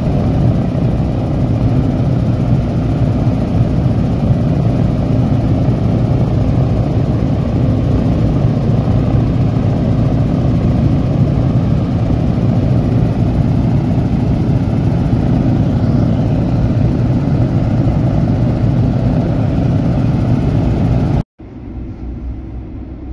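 B-29 Superfortress's four Wright R-3350 radial engines running, loud and steady. About two seconds before the end the sound cuts abruptly to a quieter, more distant engine sound as the bomber taxis away.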